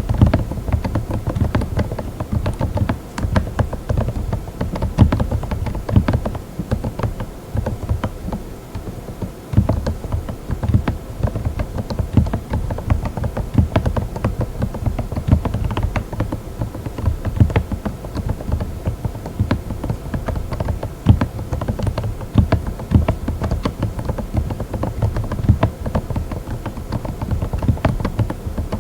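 Fast, continuous typing on a mechanical keyboard fitted with Moksae silent linear switches: many dampened keystrokes a second, with no pause.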